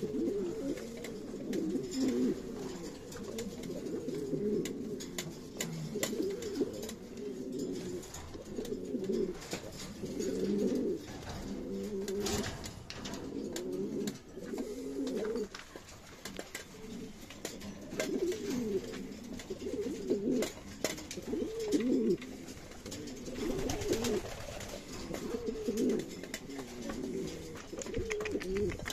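Buchón Valenciano pouter pigeons cooing over and over, each phrase a low, wavering, throaty coo.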